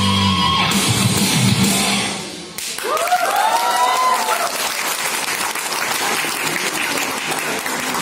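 Dance music with a heavy beat stops about two and a half seconds in, and an audience breaks into cheering and applause, with a few whoops just after the music ends.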